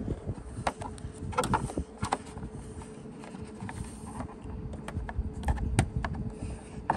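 Scattered sharp plastic clicks and knocks, a quick cluster about a second and a half in and a few more near the end, from a plastic trim tool being worked along a Toyota RAV4's rocker panel molding to release its plastic clip pins. A faint steady hum lies underneath.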